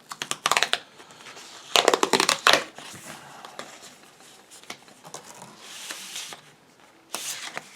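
Packaging crinkling and crackling as the Gun Skins magazine wrap packets are opened by hand. It comes in three bursts, at the start, about two seconds in and near the end, with a softer rustle between them.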